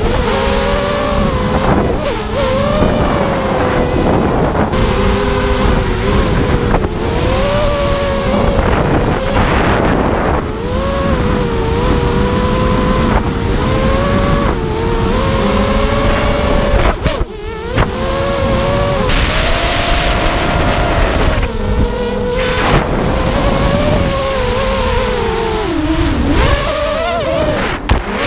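Miniquad racing drone's four 2204 brushless motors and props, heard from the camera on board: a buzzing whine whose pitch swings up and down constantly with the throttle. The sound briefly drops away about seventeen seconds in, then comes back.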